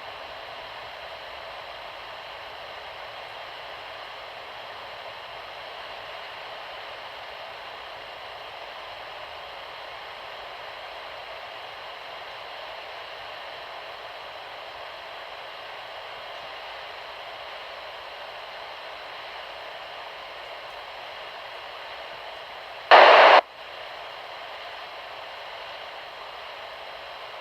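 Weather radio receiver hissing steady static with no signal: station KIG86 is off the air, most likely because high winds knocked out its transmitter. Near the end, a short, much louder burst of noise lasts about half a second.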